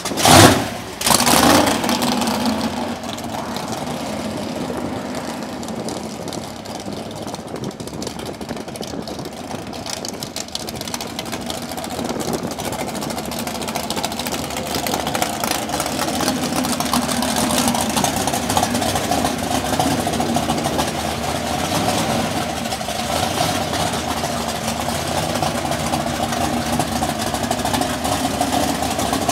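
820-cubic-inch Kaase Ford Hemi V8 in a '57 Fairlane drag car, blipped twice in the first couple of seconds, then idling steadily.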